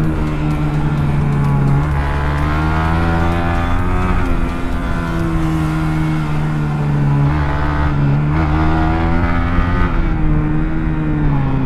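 Honda CBR250RR parallel-twin engine heard from onboard while the bike is ridden through corners. The engine note rises and falls several times as the throttle is opened and eased off.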